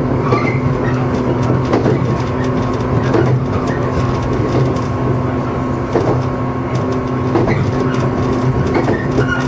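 JR 115 series electric train running, heard inside the front car: a steady hum with scattered knocks from the wheels on the track.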